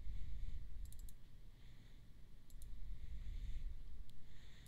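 Computer mouse clicking: a quick run of about three clicks a second in, two more after about two and a half seconds, and a single click near the end, over a low rumble.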